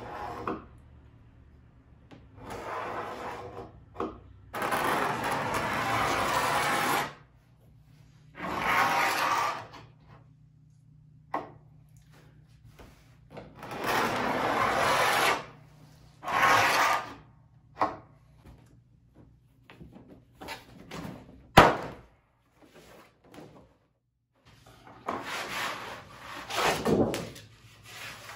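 A blade scoring a sheet of Formica laminate along a straightedge: a series of scraping strokes, each a second or two long. About 21 seconds in there is one sharp crack, and near the end the thin laminate sheet rustles and flexes as it is handled.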